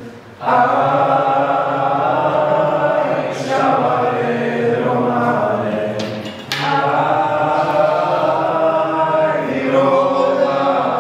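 Slow singing in long, held notes, with short breaths about half a second in and again about six and a half seconds in.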